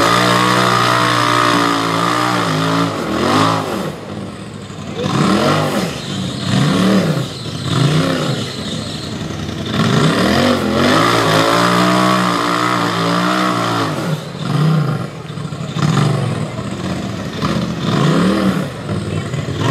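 UTV engine revving hard in repeated throttle bursts, its pitch rising and falling about ten times, with a couple of longer held pulls.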